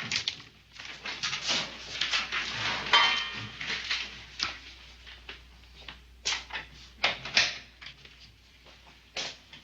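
Clanks, clicks and scrapes of a jail cell door being unlocked and opened, a short squeak about three seconds in, and a few sharp knocks later on.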